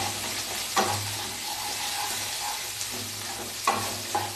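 Chopped vegetables sizzling in hot mustard oil in a pan while being stirred, with a few sharp knocks and scrapes of the spoon against the pan.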